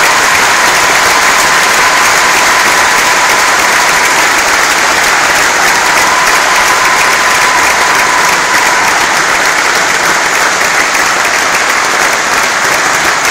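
Loud, sustained applause from a large audience filling a concert hall.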